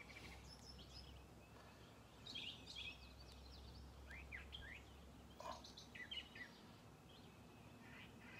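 Faint songbirds chirping on and off in short phrases of quick high notes, over a low steady background hum.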